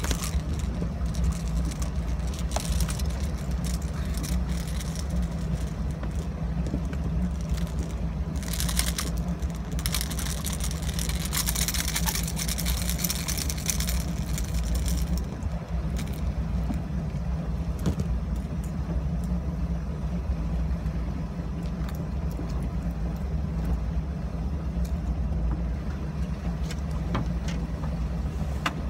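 A boat's motor running steadily while trolling, a low even drone. A few hissing rushes come through around the middle.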